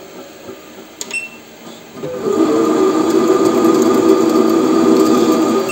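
Weisan WM210V lathe with an electronic leadscrew cutting a thread at about 200 rpm. A short electronic beep comes about a second in as a controller button is pressed. About two seconds in the spindle and leadscrew drive start into a threading pass, a loud steady motor whine and hum, with another short beep near the end.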